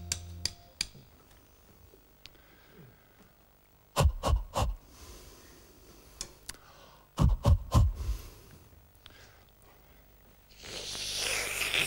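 Sharp taps in two quick clusters of three or four, about four and seven seconds in, like wooden sticks knocked together, with a breathy rush of noise lasting about a second near the end.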